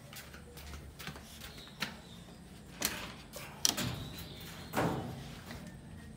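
Knocks, clicks and rattles of a wire-mesh cage as a civet scrambles and jumps about inside it, its feet and claws striking the mesh. Four louder knocks stand out over the smaller clicks, in the middle of the stretch.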